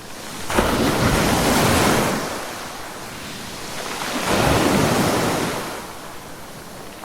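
Ocean surf: two waves break and wash in, the first swelling about half a second in and the second around four seconds in, each easing off into a softer rushing hiss.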